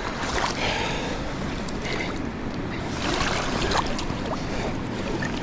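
Fast river rapids rushing steadily, with a few brief noises close by.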